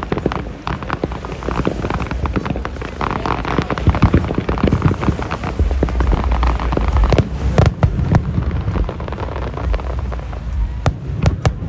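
Aerial fireworks display, with dense crackling and popping bursts. A heavy low rumble of booms comes about halfway through, and a few sharp single cracks near the end.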